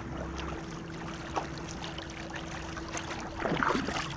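Canoe paddles dipping and pulling through river water as a war canoe moves, with small splashes and knocks over a steady low hum. There is a brief louder sound a little past three and a half seconds in.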